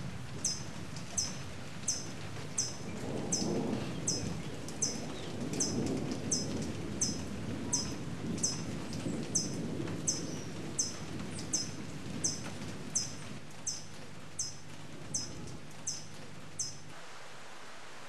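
A hummingbird's short, high chip call repeated steadily, about three notes every two seconds, over a low rumble of wind and rain. Both stop about a second before the end, leaving a flat hiss.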